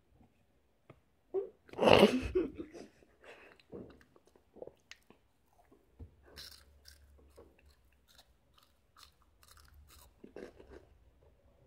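A person chewing crunchy Chester's Flamin' Hot Fries, corn-and-potato puffed snacks: a run of short, crisp crunches, the loudest about two seconds in.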